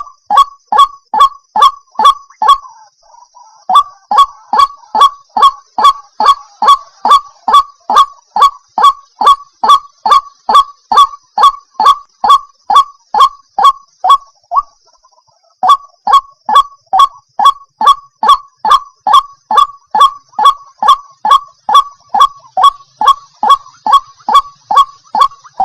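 White-breasted waterhen calling: a loud, monotonous series of repeated 'kwak' notes, about two to three a second, broken by two short pauses, about three seconds in and about fifteen seconds in.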